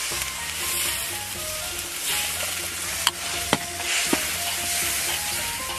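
Beer sizzling and bubbling in a hot wok of fried chili sauce, poured in at the start, with a metal spatula stirring and knocking against the wok a few times around the middle.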